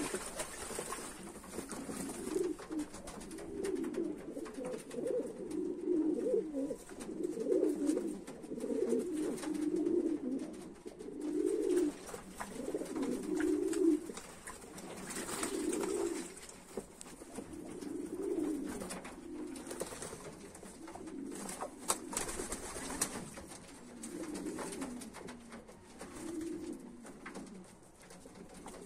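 Domestic pigeons cooing over and over, with water splashing and wings fluttering as they bathe in a shallow tray.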